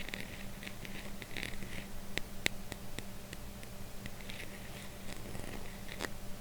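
Metal and glass lids being handled: soft scraping and rubbing with a few sharp clicking taps, the crispest about two and a half seconds in and another near the end.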